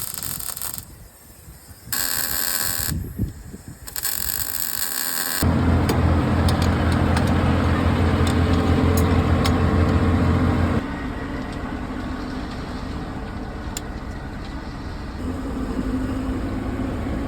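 Three short bursts of loud hissing, then the excavator's diesel engine running loud and steady. It drops to a lower speed about 11 seconds in and changes pitch again near the end.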